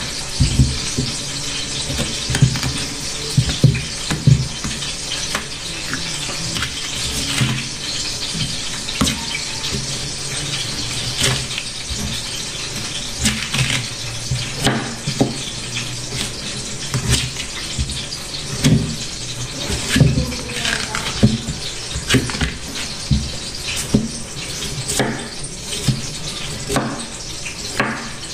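Kitchen knife peeling the thick bark-like skin off a cassava root: repeated irregular scraping and cutting strokes with small clicks, over a steady hiss.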